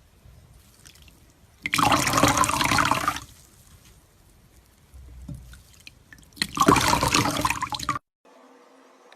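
Two short bursts of running or pouring water, each about a second and a half long and a few seconds apart.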